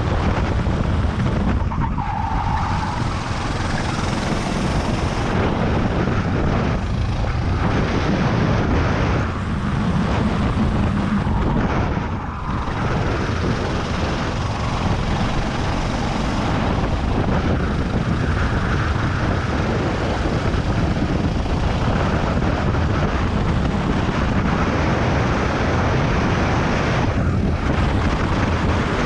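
Racing kart engine running hard under throttle, heard from on board with wind rushing over the microphone, easing off briefly a few times for corners.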